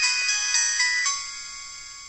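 Alcatel OT-1016D mobile phone playing one of its built-in tones through its small speaker: a quick run of bright synthesized notes, then a last note held and fading out.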